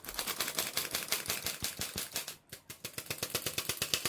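Handheld stainless steel flour sifter clicking rapidly as its mechanism is worked to sift flour into batter, with a short break about two and a half seconds in.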